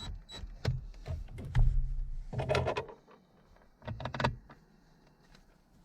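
Clicks, knocks and rattles of hand work on a car's armrest lid hinge, with tools and small parts being handled while screws go in. Two short, louder scraping bursts come about two and a half and four seconds in, then it goes nearly quiet.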